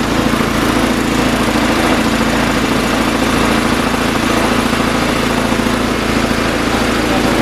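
Small pull-start gasoline engine of a portable air compressor running at a steady speed.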